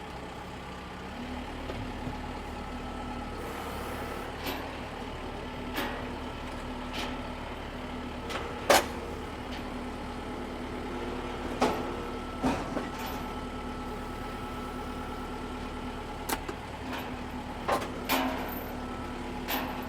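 A vehicle engine running, stepping up in speed about a second in and then holding steady, with several sharp metal clanks and knocks scattered over it.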